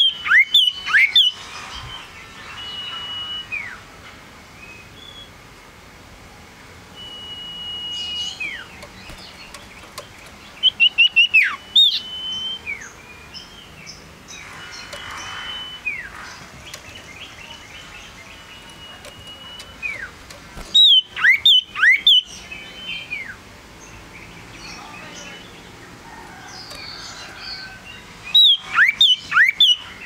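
Male sirtu (cipoh, an iora) singing in a cage. Four loud bursts of quick, sharp chirps that slide down in pitch come about every 8 to 10 seconds, with long, level whistled notes and softer calls between them.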